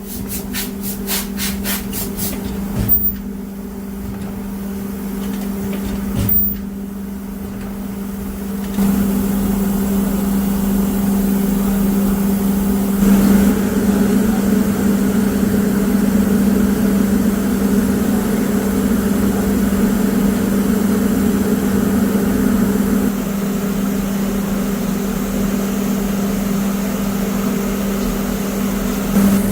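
Zipper-making factory machinery running with a steady hum. Rapid clicking at the start, a knock about three seconds in and another about six seconds in, then the machine noise gets louder from about nine seconds in and stays steady.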